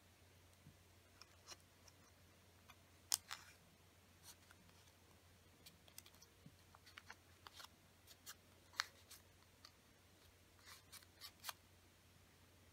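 Small sheets of origami paper being folded, creased and slotted together by hand: faint, scattered crisp crackles and clicks, the loudest about three seconds in and again near nine seconds.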